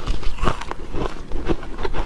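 Dry freezer frost being bitten and chewed: an irregular run of crunches, several a second.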